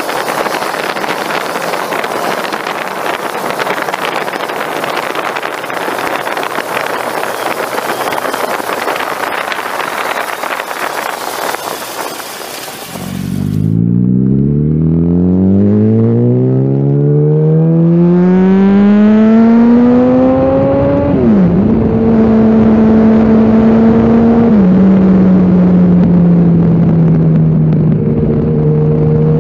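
Wind rushing over the microphone at speed, then a Yamaha R1 superbike's inline-four engine rising steadily in pitch as it accelerates. About twenty-one seconds in the pitch dips briefly; the engine then holds a steady drone that drops a step in pitch near twenty-five seconds.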